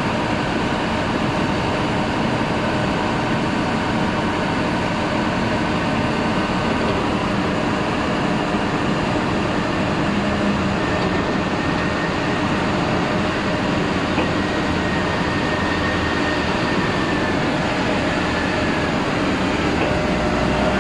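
Large forklift running steadily with a faint whine over its machine noise, as its tyre-handler clamp rotates a big tyre.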